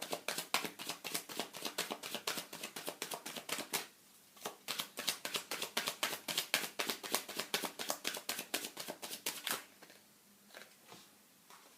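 A deck of tarot cards being shuffled by hand: rapid crisp clicking and slapping of cards. It comes in two bouts, with a short break about four seconds in, and stops about two seconds before the end.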